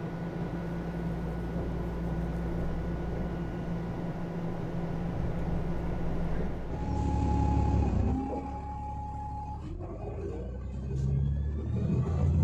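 Steady hum of a subway car interior, with a few fixed whining tones. About seven seconds in it changes to a city bus's engine running, with a held high tone for a couple of seconds and then a rising whine as the bus speeds up.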